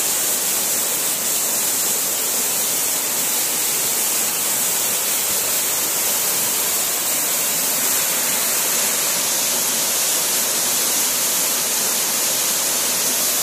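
Waterfall cascading down rock ledges into a pool: a steady, unbroken rush of falling water with a bright hiss.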